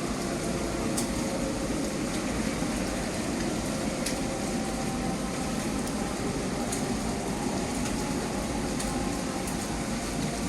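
Steady din of a busy indoor food court: a constant background hum of crowd and room noise with a few faint clicks.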